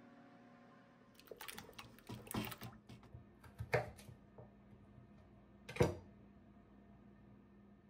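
Kitchen knife cutting raw russet potatoes into fries on a wooden cutting board: a run of irregular knocks as the blade goes through and strikes the board, starting about a second in, the loudest single knock near six seconds.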